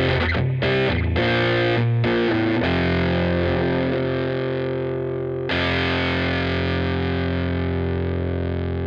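A Squier VM Jazz played through a Killer Otter Electric Party Animal fuzz pedal into an AC30 amp modeler, giving a thick distorted fuzz tone. Short chopped notes give way to a held note, and about halfway through a new note is struck and left to ring out, slowly fading.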